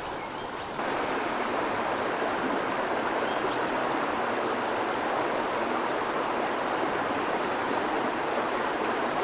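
Steady rush of a small stream running high, a continuous wash of flowing water that rises slightly in level about a second in.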